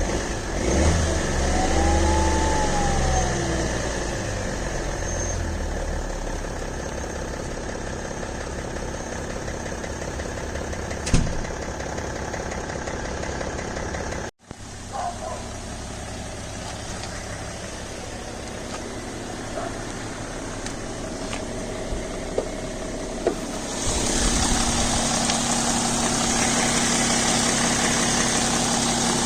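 BMW E60 525d straight-six diesel idling, revved briefly once about a second in, with a tick or click that the owner hears only while the engine is cold and that goes away once it reaches about 80 °C. The sound grows louder for the last few seconds.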